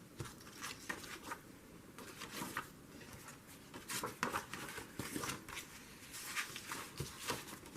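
Paper pages being folded and handled by hand: soft, scattered rustles and light taps, busier in the second half.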